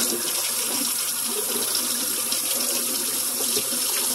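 Kitchen faucet running steadily, the stream splashing onto and into a raw turkey as it is rinsed under the tap.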